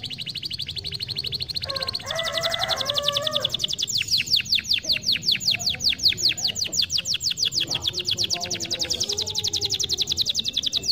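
Domestic canary singing a long run of rapid trills. A fast, even rolling trill changes about two seconds in to a louder trill of quick repeated downward-sweeping notes, with softer, lower warbled notes underneath at times.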